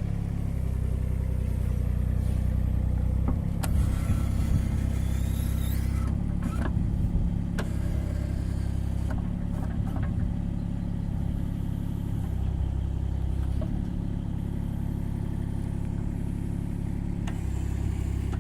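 Kubota KX019-4 mini excavator's diesel engine running while its hydraulics work the tilting grading bucket. The engine note shifts several times as the hydraulics take load. A few clicks and a brief high squeal come between about four and ten seconds in.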